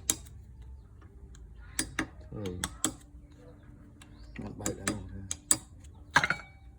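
Irregular sharp clicks and knocks of metal tools and parts being handled at a wood lathe, the loudest cluster about six seconds in. A steady low hum sets in about three seconds in.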